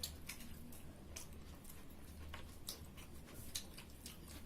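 Quiet eating sounds: people chewing a meal with scattered small, irregular clicks and smacks, over a faint low hum.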